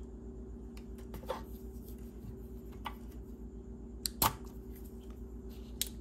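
A few light clicks and knocks from soldering tools and a circuit board being handled during desoldering, the loudest about four seconds in, over a steady low hum.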